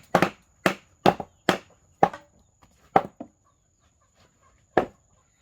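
Hammer blows on timber: about six sharp strikes in quick succession, roughly two a second, then a pause and one more strike near the end.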